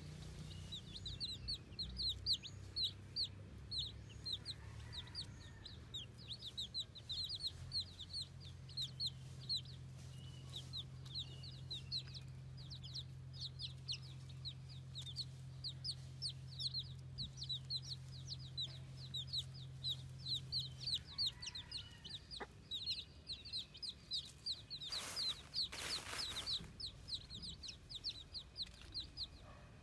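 A flock of baby chicks peeping without pause: many short, high, downward-slurred peeps overlapping one another. A low steady hum sits underneath for much of the time, and a brief rush of noise comes about 25 seconds in.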